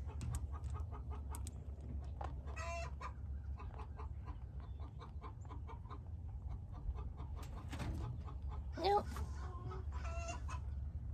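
Chickens clucking, with a few louder pitched calls about two and a half seconds in and again near the end, over a steady low rumble.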